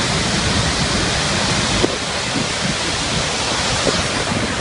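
Water rushing in a steady, dense torrent, as from the outlet of the Blue Tunnel water-supply conduit, with a slight change in the rush about two seconds in.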